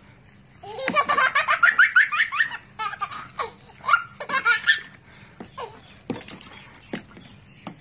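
Toddler belly-laughing: a fast run of loud laugh syllables about a second in, a few more bursts of laughter up to about five seconds in, then only scattered soft clicks.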